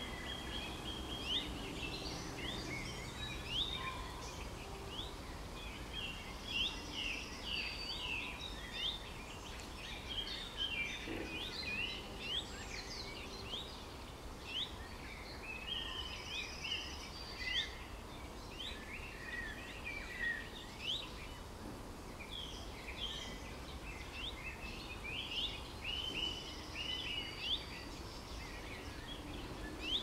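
A chorus of many songbirds singing at once: quick, overlapping chirps and short whistles over a faint background hiss.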